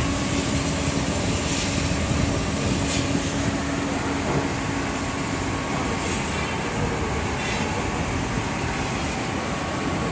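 Double-head laser cutting machine running: a steady mechanical hum and hiss with a low constant tone that fades about seven seconds in, and a few brief hisses.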